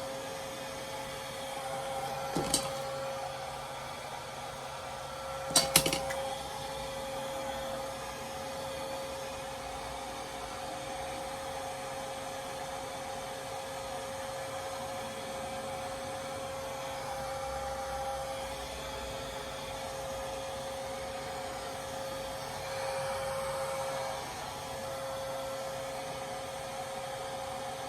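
Hair dryer running steadily with a constant whine, blowing to dry the holding spray on a lace wig. Two sharp clicks about two and a half and six seconds in.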